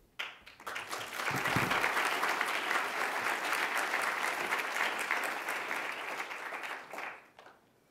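Audience applauding, building up over the first second, holding steady, and fading out near the end.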